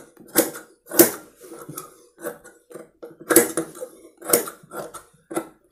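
Large tailor's shears snipping through blouse fabric: a string of sharp metallic snips at an uneven pace, about one or two a second, as the excess seam allowance is trimmed off.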